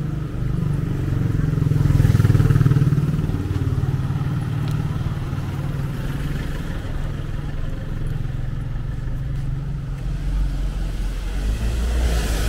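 Street traffic: motor vehicles running close by. One engine grows loudest as it passes about two seconds in, and a deeper rumble builds near the end.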